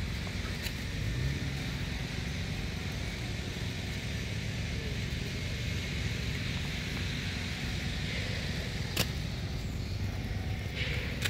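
Steady low rumble of outdoor background noise with a faint steady high hiss, broken by a single sharp click about nine seconds in.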